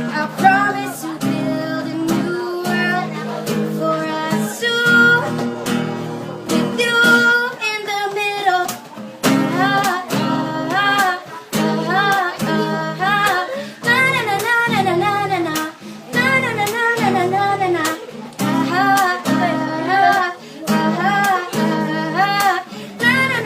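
A young female singer singing while accompanying herself on acoustic guitar. The voice comes through most strongly from about nine seconds in.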